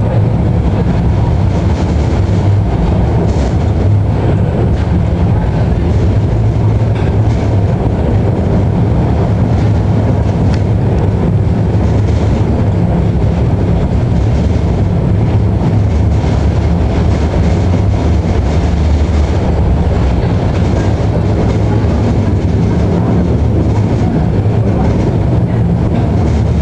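Tram running along its track: a steady low rumble of wheels and running gear on the rails, with scattered faint clicks from the wheels.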